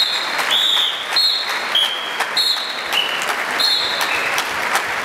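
Audience applauding, with a string of short, high whistle-like tones repeating about twice a second over it.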